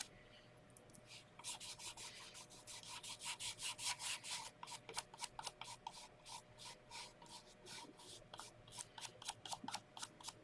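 A small bristle brush scrubbing clear furniture wax onto a painted piece in short, quick back-and-forth strokes, about four a second. The strokes start about a second in.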